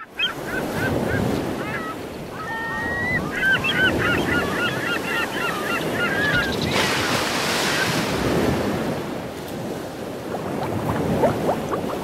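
Sea waves washing on a shore with seabirds calling in quick repeated series over them for the first half, then a louder rush of surf about seven seconds in; near the end a run of rising bubbles begins.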